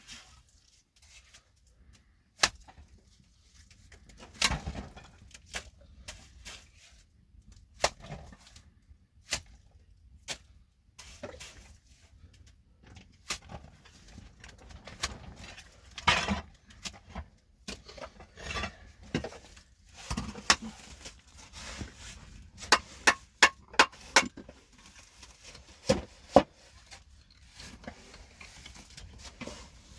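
Irregular sharp knocks and clicks of hard objects being handled, scattered throughout, with a quick run of them in the last third.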